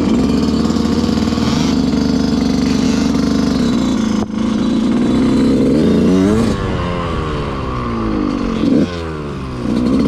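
Motorcycle engine running steadily, then revving up sharply about six seconds in and again near nine seconds, the pitch falling away after each rev.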